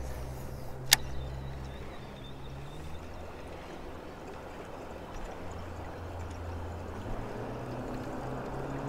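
Low steady hum of a distant motor that shifts pitch a couple of times, with faint water sounds and one sharp click about a second in.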